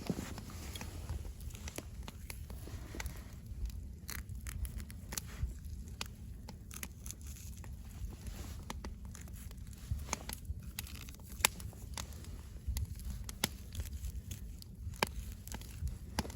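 Knife cutting and scraping a slightly frozen grayling as it is cleaned and split along the backbone: irregular sharp clicks and scrapes over a low rumble.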